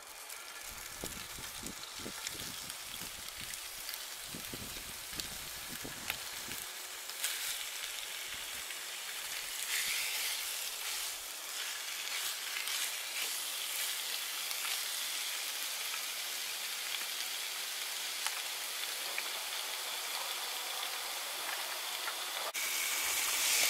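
Diced snowshoe hare meat sizzling as it fries in oil in a frying pan on a camp stove, growing louder over the first several seconds. A few low thumps come in the first seven seconds.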